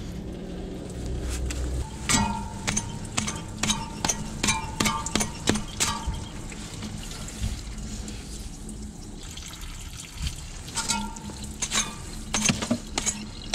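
Coolant draining out of a diesel engine through the water pump opening: a steady splashing stream with many sharp ticks of drips and splatter.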